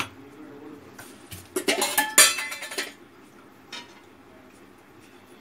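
A spoon clinking against a bowl: one sharp click, then a short clatter of clinks between about one and a half and three seconds in, and a faint click near four seconds.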